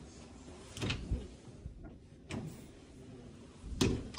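Several separate clunks and knocks of interior doors being handled, the loudest at the very end.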